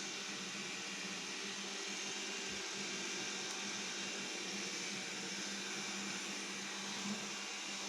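Xiaomi Mijia 1C robot vacuum running: a steady low motor hum over an even hiss of suction airflow.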